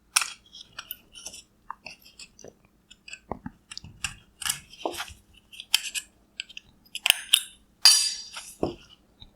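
Small screwdriver prying a plastic cover off an LED headlight ballast: irregular plastic clicks and scrapes, with a louder scraping crackle about eight seconds in.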